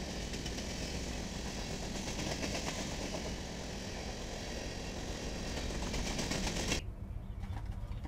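Diesel-hauled freight trains rolling past: a dense rush of locomotive engine and steel wheels on rail, with rapid fine clicking through it. It cuts off abruptly about seven seconds in, leaving only a low rumble.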